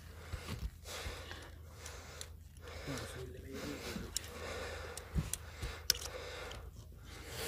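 Quiet handling noise and breathing as a scoped rifle is swung and brought onto a target, with a few sharp clicks, the loudest about six seconds in.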